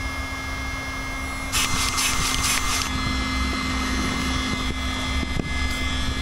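Two small battery-powered electric air pumps running together, a steady motor whine, inflating the tubes of a TPU inflatable boat. A brief noisy rush comes about a second and a half in, and the pumps' pitch steps up slightly about three seconds in.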